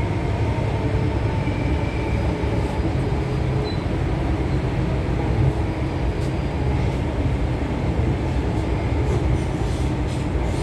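Delhi Metro train running along an elevated track, heard from inside the coach: a steady low rumble of wheels on rail, with a few faint ticks.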